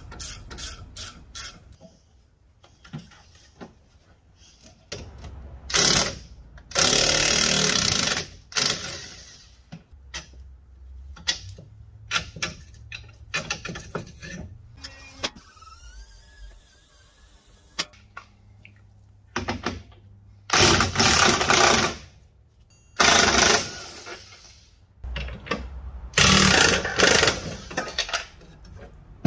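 Impact wrench rattling in about five short bursts of one to two seconds, undoing the bolts while a car's front strut is taken out, with lighter tool clatter in between.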